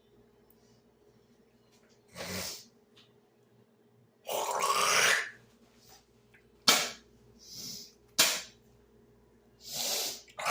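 A person breathing out heavily in several short noisy breaths, the longest about a second long, with a few sharp clicks in between. It comes from a stomach bloated with fizzy soda while he holds in a burp.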